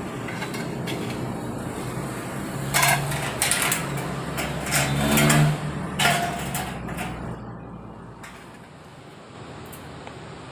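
Light-gauge steel profiles clanking as they are handled and stood up as a ladder frame: a handful of sharp metallic knocks between about three and six seconds in, over a steady background hum.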